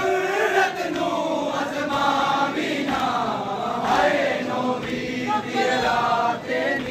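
Large crowd of men chanting together in unison, a Muharram mourning chant, with many voices rising and falling in pitch together.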